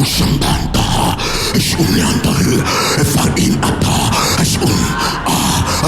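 Loud, rapid, choppy vocal sounds, voices making wordless percussive noises without a break.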